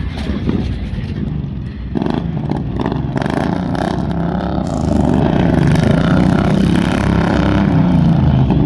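Tractor engine revving hard under load, getting louder about two seconds in and again about five seconds in.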